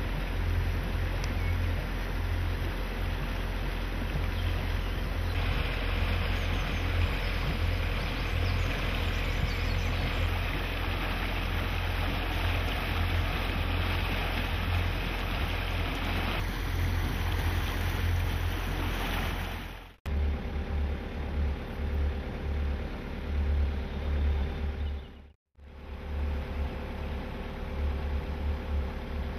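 Motorboat engine running steadily under a broad rush of water along the hull. The sound breaks off briefly twice in the latter part, once for a moment.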